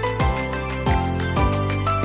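Upbeat background music: sustained melodic notes over a steady beat with a kick drum about twice a second.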